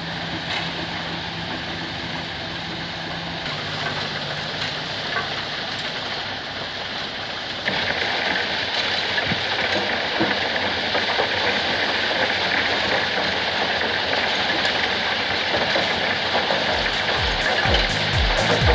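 Steady clattering machinery noise from a gravel quarry's stone crushing plant and conveyors, with a low engine hum early on, growing louder and brighter a little under halfway through. Music with a beat comes in near the end.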